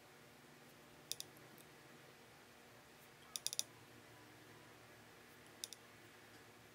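Near silence with faint room tone, broken by small sharp clicks: a pair about a second in, a quick run of four in the middle, and another pair near the end.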